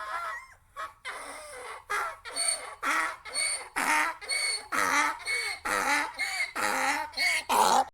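Ducks quacking in a quick, steady series of short calls, about two to three a second.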